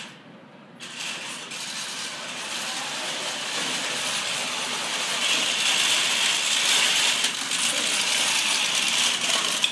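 FRC competition robot's electric drive motors and gearboxes whirring, with metal parts rattling, as it drives over carpet. The sound grows louder as the robot approaches and cuts off suddenly when it stops.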